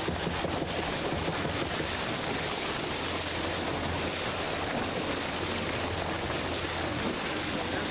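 Water rushing along the hull of a motorboat under way, with wind buffeting the microphone and a steady low hum beneath.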